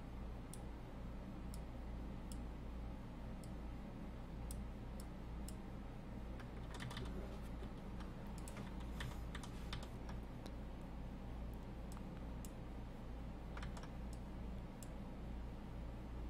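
Scattered light clicks and taps of a computer mouse and keyboard, a few coming in small clusters, over a steady low hum.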